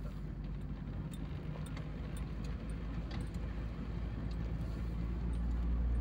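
Car engine and road noise heard from inside the cabin: a steady low rumble with a few faint rattles, growing louder near the end.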